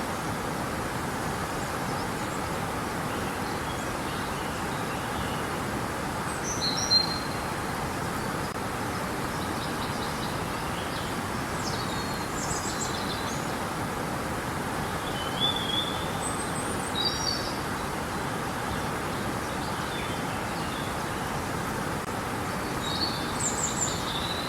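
Steady rushing of river water, with small birds chirping over it in short bursts, the loudest chirp about seven seconds in and several more in the second half.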